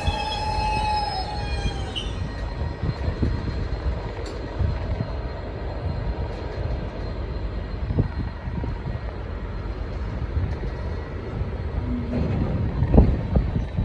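Freight train wagons rolling through slowly, a high wheel squeal dying away in the first two seconds, then a steady low rumble with occasional knocks and clanks, heavier near the end. The train is slowing to stop.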